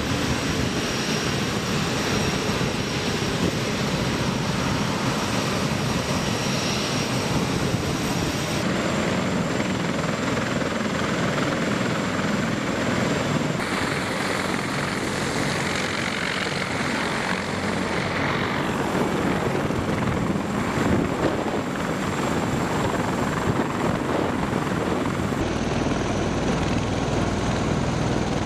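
CH-53E Super Stallion helicopters running on the ground, their three turboshaft engines and rotors making a steady loud noise with a high turbine whine. The tone shifts abruptly several times.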